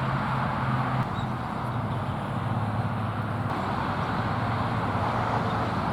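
Steady background noise: an even hiss over a low hum, with no distinct calls or knocks standing out.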